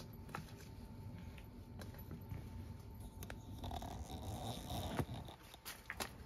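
Leaves and stems rustling and scraping as the garden plants are pushed through, with scattered small clicks, a sharp knock about five seconds in, and a few more clicks near the end.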